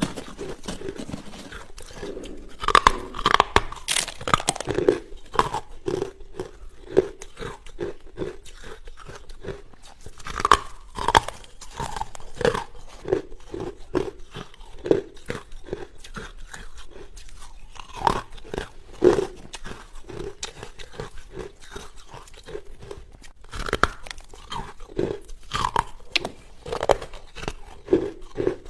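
A person biting and chewing hard carbonated ice: loud clusters of sharp crunches come every several seconds, with steady, rhythmic chewing in between.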